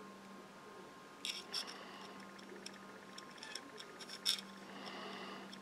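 Light clicks and taps of a plastic scale-model part and a needle-tipped glue bottle being handled, a pair about a second and a half in and a louder cluster near four seconds, over a steady faint hum.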